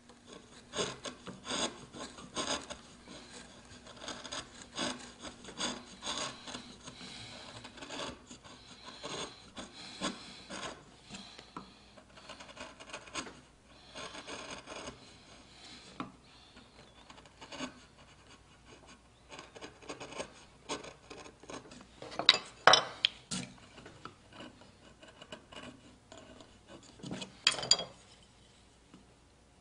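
Carving gouges pushed by hand through wood, shaving out the flutes of a carved shell in a run of short scraping cuts. Two louder, sharper knocks come in the second half.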